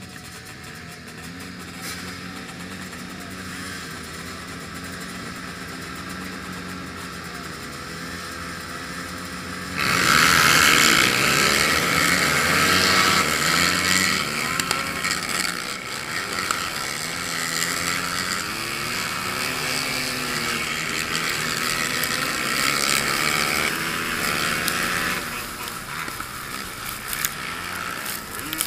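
Sport quad ATV engines idling together at a race start. About ten seconds in they suddenly go to full throttle and race, the engine sound much louder, its pitch rising and falling with throttle and gear changes.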